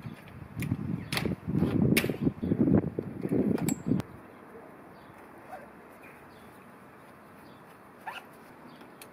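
Folding bicycle being folded: clicks, knocks and rattling from the frame hinge, latches and handlebar stem for about four seconds, then it goes quiet.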